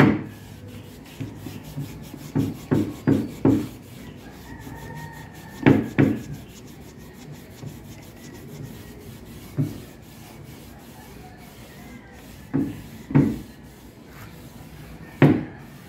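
A cloth rag rubbed hard along freshly applied PVC edge banding to press it onto a contact-cemented board edge. It comes as short strokes in bursts: three or four about two to three seconds in, two around six seconds, one near ten, two around thirteen and one near the end.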